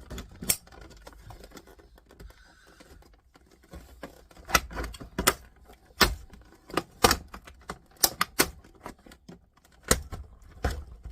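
Irregular sharp clicks and knocks of a screwdriver and hands working on the plastic and metal casing of a stereo unit being dismantled, few at first and coming thicker and louder from about four seconds in.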